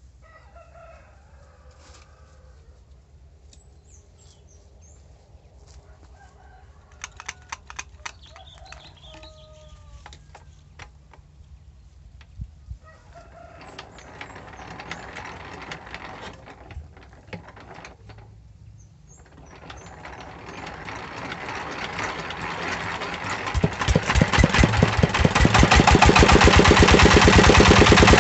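A 20 hp diesel engine is worked on and spun up, with a rising whirring noise. About two-thirds of the way in it fires, its quick, even firing strokes getting louder and settling into a steady run. Chickens cluck and a rooster crows faintly in the first half.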